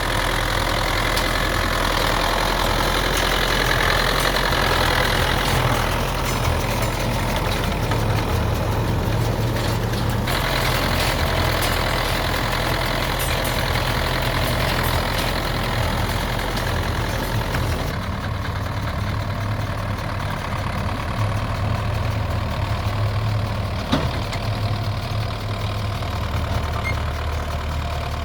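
Belarus 825 tractor's diesel engine running steadily. The brighter, higher part of the sound drops away about two-thirds of the way through, and there is one brief click near the end.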